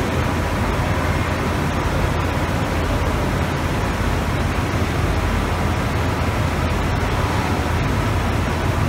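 2005 Schraml topDRILL RX 240NC vertical glass drilling machine running idle with no glass loaded: a steady low hum under a constant even hiss, with a faint steady tone above.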